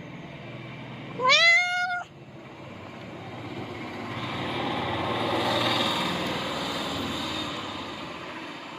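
A cat meows once about a second in, a single call that rises in pitch and then holds. After it, a rushing noise swells and fades over about five seconds.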